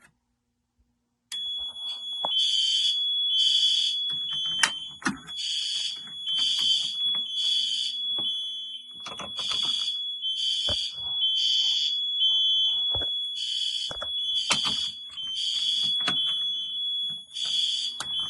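Fire alarm system in alarm: horns blasting in pulses about once a second over a steady high-pitched tone, with sharp clicks among them, starting about a second in. Set off by a smoke detector test.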